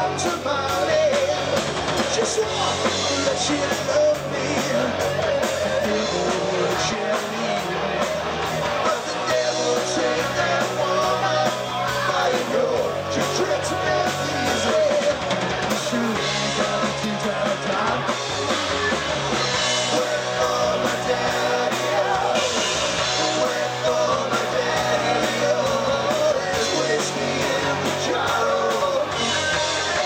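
A live rock band running through a song at a sound check: singing over two electric guitars, bass guitar and a drum kit, playing without a break.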